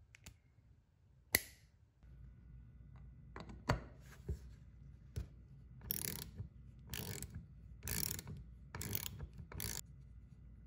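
Socket ratchet wrench clicking in short runs, roughly one stroke a second, as it turns a small nut on the cast metal base of a vintage foot air pump. A single sharp click comes first, about a second in.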